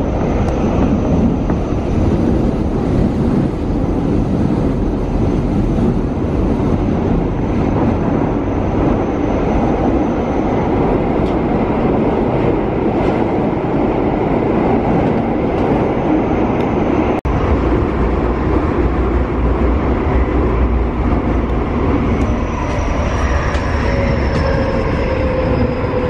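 Subway train running, heard from inside the car: a loud, steady rumble of wheels and running gear. Near the end a falling motor whine comes in as the train slows.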